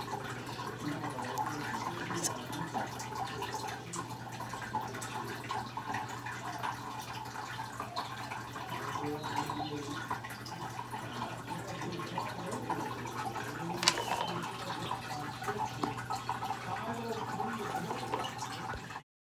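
Aquarium filter running: water trickles and drips continuously over a steady low hum, with one sharper click about two-thirds of the way through. The sound cuts off suddenly near the end.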